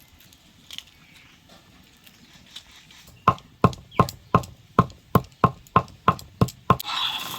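Faint crackling, then a run of about eleven sharp, even knocks, roughly three a second, that stops near the end: a kitchen tool striking something hard during food preparation.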